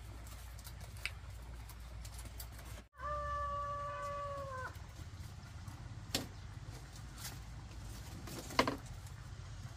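A rooster crowing once: a single long held note that dips at the end, over a low steady background. Two light knocks follow, the second the sharper.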